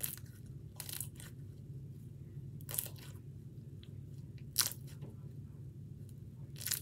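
Crunchy slime being squeezed and pressed between the fingers, giving scattered crackles and pops, a few louder ones a second or two apart.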